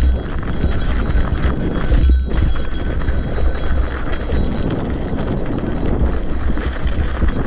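Rigid-frame gravel bike rolling over a rough dirt trail: tyre noise over loose dirt and debris with a constant jumble of knocks and rattles, under a steady low rumble of wind on the microphone.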